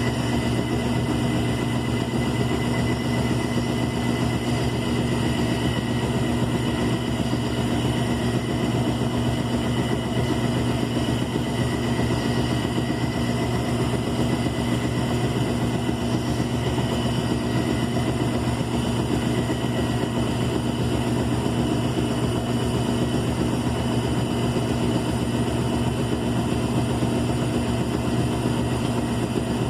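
Electrolux LE05 washing machine running with a steady motor hum and a faint high whine, unchanging throughout.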